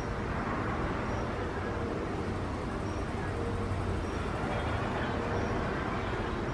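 Steady outdoor background rumble, with a faint short high chirp repeating roughly every second and a half.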